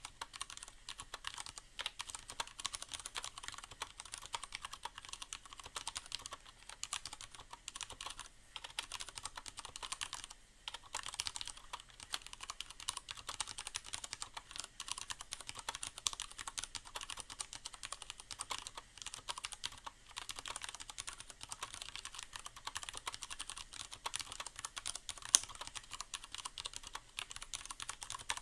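Continuous fast typing on a mechanical keyboard with Cherry MX Brown switches, a steady patter of key clacks with short pauses and one louder keystroke near the end. Faint rain hiss underneath.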